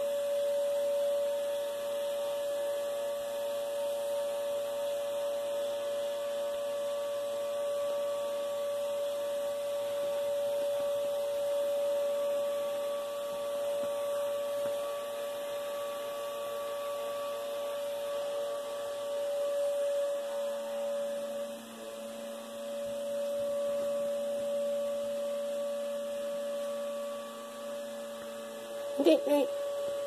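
Vacuum cleaner running steadily: a constant motor hum with an airy hiss. A couple of short, louder sounds break in about a second before the end.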